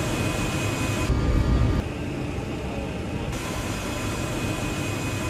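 Steady noise of aircraft engines heard inside a military cargo plane's hold, a low rumble with a faint high whine; its tone shifts a few times.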